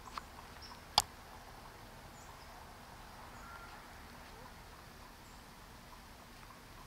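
Quiet woodland background with one sharp click about a second in and a few faint, short high chirps.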